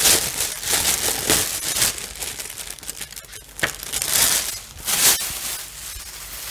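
Paper booklets and their wrapping crinkling and rustling as they are handled and pulled out, in irregular handling noises that are loudest near the start and again about four and five seconds in, with one sharp click in between.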